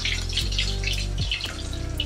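Fish pieces sizzling and crackling in hot mustard oil in a metal kadai as they are lifted out with a spatula. Background music with a low bass line runs underneath.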